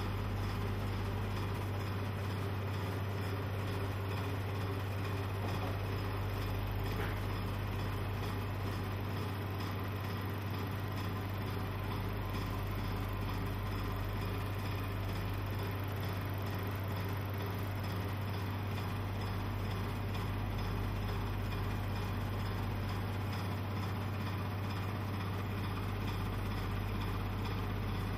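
Film-handling machinery running steadily: a strong, even low electric hum with a constant mechanical whir over it, no change in speed or pitch.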